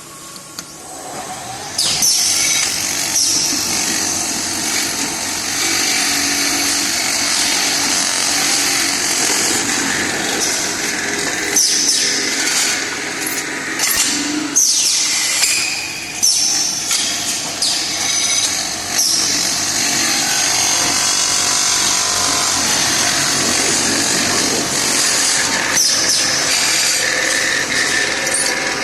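CNC metal-spinning machine forming the neck of a stainless steel double-wall bottle: the steel blank spins while the forming roller presses against it, making a loud, steady, hissing machine noise that starts about two seconds in, with occasional short sharp scrapes.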